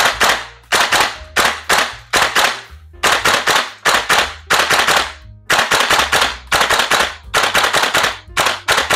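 VFC HK416A5 gas blowback airsoft rifle fired repeatedly, about three sharp shots a second with short uneven gaps, each shot the crack of the gas blast and the bolt cycling back. Background music plays underneath.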